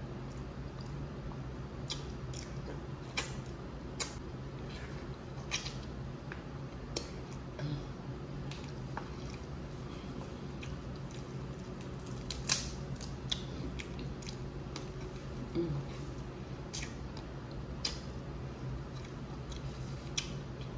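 Eating a saucy seafood boil of Dungeness crab: scattered sharp clicks and small wet squishes of shell, fingers and mouth, a few every couple of seconds, over a steady low air-conditioner hum.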